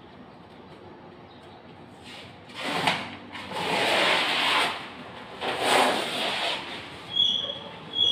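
Wallpaper being peeled and rubbed at a wall by hand: three rasping bursts of paper noise, each about a second long, followed by a few short squeaks and clicks near the end.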